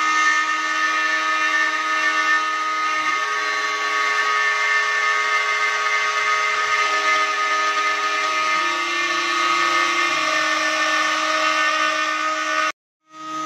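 CNC machine's trim-router spindle running steadily as its bit cuts a curved outline into a wooden board, with a high whine over a hiss. Some of the lower tones step to a new pitch every few seconds as the machine moves. The sound drops out for a moment near the end.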